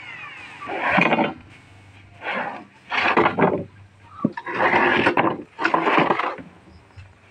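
Loose plywood sheets scraping and rubbing against each other and the floor in several short bursts as they are shifted underfoot.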